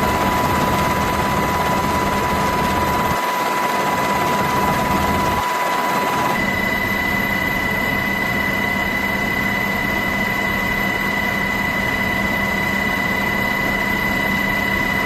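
Aircraft turbine engine running: a steady low rumble under a high, steady whine. The low rumble drops out briefly twice, and about six seconds in the whine shifts to a higher tone.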